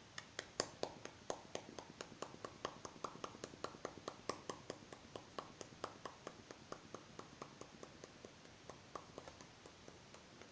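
Rapid, even clicking from a small glass nail polish bottle, about five clicks a second, each with a short glassy ring. The clicks thin out and stop near the end.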